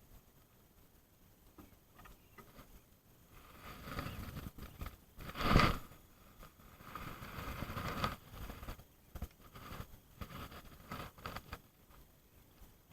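Intermittent rustling and scraping from handling fishing gear in a boat, in several short spurts, with one sharp knock about five and a half seconds in.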